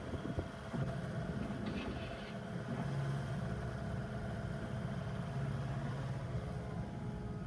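The Kubota KX080 excavator's 67-horsepower diesel engine running steadily.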